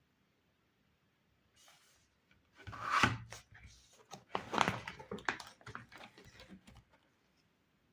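Plastic toy kitchen pieces and their packaging being handled, with rustling and a string of light clicks and taps starting about two and a half seconds in and dying away near the end.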